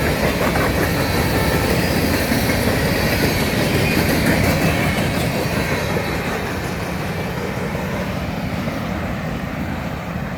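Freight train cars, hoppers among them, rolling past on the rails: a steady wheel-on-rail rumble with clickety-clack over the rail joints, easing off a little in the second half.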